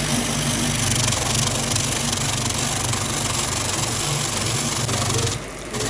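An engine running steadily at idle, a low hum with an even hiss over it, dipping briefly near the end.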